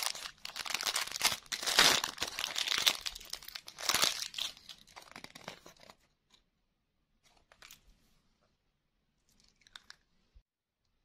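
Clear plastic toy bag crinkling and rustling as it is handled, loudest about two and four seconds in, stopping about six seconds in. After that, a few faint clicks.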